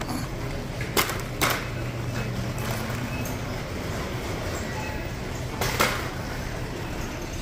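Plastic shopping cart rolling over a tiled store floor: a steady low rumble from its wheels, with a few sharp rattling knocks, one about a second in, another half a second later and one near six seconds.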